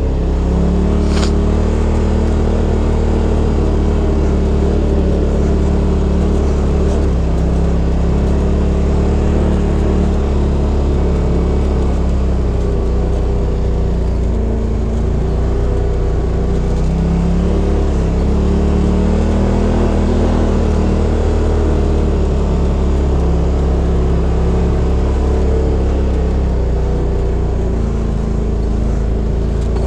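2018 Polaris RZR XP Turbo's turbocharged twin-cylinder engine running steadily at low revs as the side-by-side drives along a snowy trail, its pitch rising and falling gently with the throttle.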